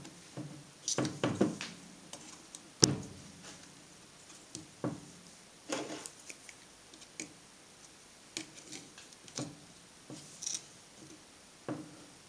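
Scattered small clicks and knocks of fingers handling the plastic brush holder, carbon brush and spring inside an opened angle grinder housing, with one sharper click about three seconds in.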